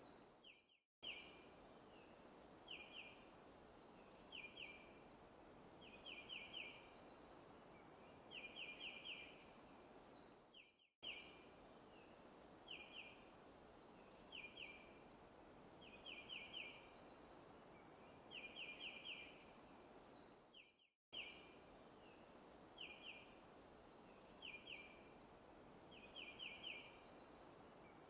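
Faint forest ambience: a bird repeating short bursts of one to four quick high chirps about every two seconds over a steady soft hiss. The looped track drops out briefly about every ten seconds.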